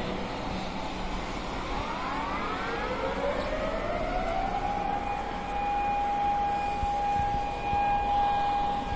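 Outdoor civil-defence warning sirens winding up, rising in pitch from about two and a half seconds in and then holding one steady tone. They sound the start of the moment of silence for the anniversary of the 2011 tsunami.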